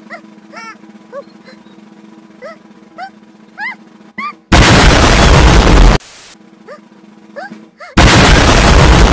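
Two ear-splitting blasts of distorted, clipped noise, each about a second and a half long, edited in as 'explosive sneezes'. Before them, a steady low hum runs under short rising chirps.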